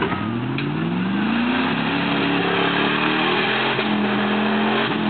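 Lifted Ford pickup's engine revving hard under load as its mud tires spin in deep mud. The pitch climbs over the first two seconds and then holds high, wavering.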